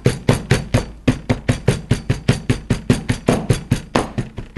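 Wooden rolling pin striking walnuts sealed in a plastic zipper bag on a wooden cutting board, an even run of about four quick knocks a second, cracking the nuts into small pieces.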